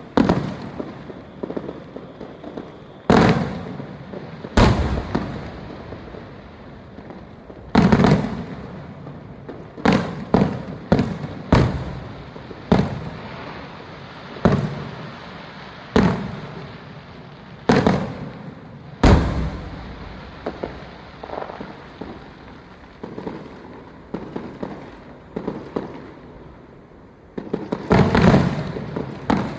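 Aerial fireworks bursting: a run of sharp booms, one every second or two, each trailing off in a fading echo, with a quick cluster of bursts near the end.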